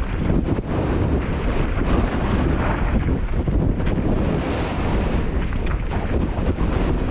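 Heavy wind buffeting on a GoPro Hero 8 Black's microphone during a mountain-bike descent. Under it run tyre noise on a dirt trail and short knocks and rattles from the bike over bumps.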